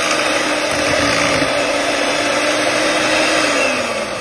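Electric hand mixer running steadily, its beaters whirring through a thick cream cheese and pudding mixture in a glass bowl. Near the end it is switched off and the motor winds down, its hum dropping in pitch as it fades.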